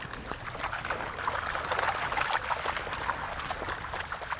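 Wading footsteps through ankle-deep seawater over sand: a continuous, irregular run of small splashes from people and a dog walking in the shallows.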